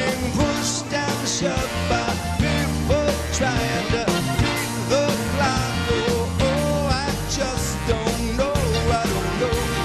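Rock song playing in the background: a singing voice over a steady drum beat and guitar.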